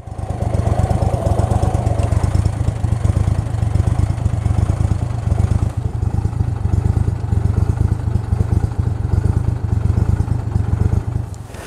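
Small boat motor running steadily at a low, even speed, fading out near the end.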